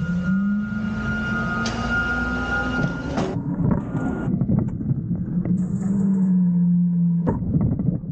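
Front-loader garbage truck's engine and hydraulics running under load, the pitch rising slightly as the forks lift a steel compactor bin over the cab, with a high whine. From about 3 s in, trash slides and clatters into the hopper as the bin is tipped, with a sharp bang near the end.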